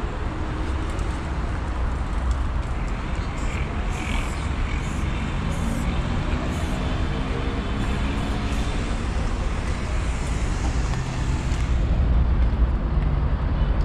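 Steady urban traffic noise, with several short hisses of an aerosol spray-paint can partway through.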